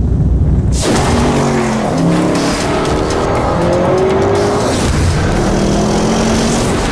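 Lamborghini Urus twin-turbo V8 revving hard as the SUV accelerates, its pitch sweeping up and down, over a loud rushing noise of tyres and road. It cuts in abruptly about a second in.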